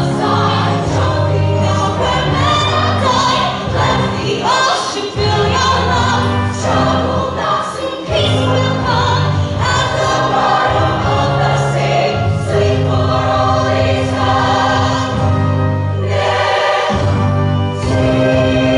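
Women's show choir singing in parts, accompanied by a live band with a sustained bass line.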